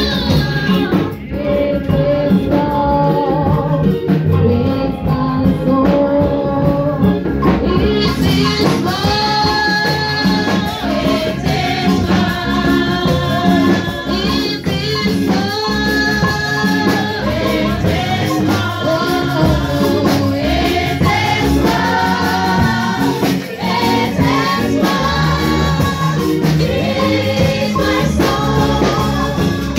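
Women's choir singing a gospel song into microphones, with a tambourine shaken along.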